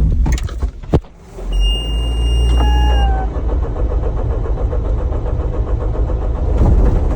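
Skid steer engine starting and then running steadily. A high electronic warning beep sounds as it catches, and a lower tone briefly sags in pitch.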